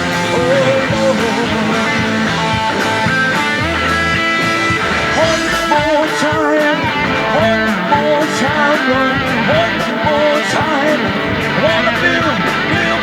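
Band music with guitar: a wavering lead melody of bent notes over steady chords and bass.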